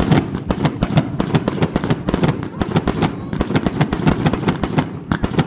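Fireworks going off in rapid succession: a dense, unbroken crackle of many sharp bangs a second.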